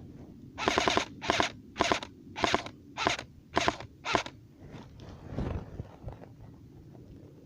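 Airsoft gun firing a quick string of about seven short bursts, roughly two a second, each a sharp clattering crack, stopping a little over four seconds in.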